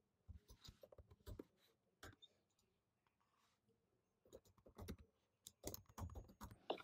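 Faint typing on a computer keyboard: a short run of key clicks, a pause of about two seconds, then a quicker run of keystrokes near the end.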